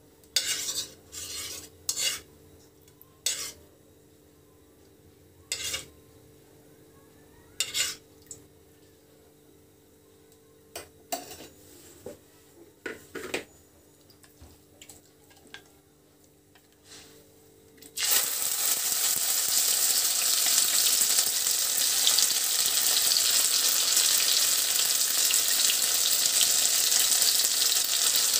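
A steel spoon clinks and scrapes now and then against a kadhai of heating ghee. About two-thirds of the way in, a loud, steady sizzle starts suddenly as wet ginger paste goes into the hot ghee to fry.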